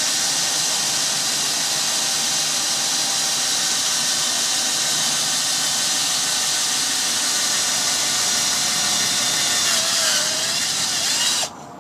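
Electric drill running steadily as it bores a hole through the metal of a car door latch, then stopping suddenly near the end.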